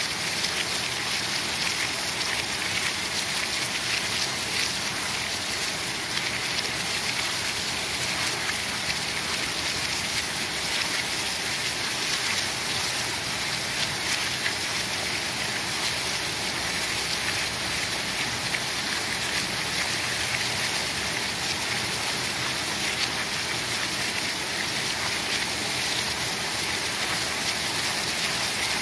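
Heavy rain pouring steadily, a dense, even hiss.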